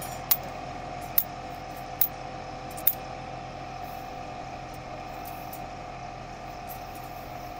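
Tractor engine running steadily, with four sharp clicks, about one a second, in the first three seconds.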